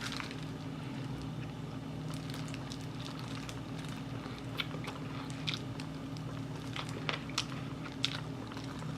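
Close-up chewing and biting of Korean fried chicken, with scattered short crunches and clicks of the crisp batter, over a steady low hum.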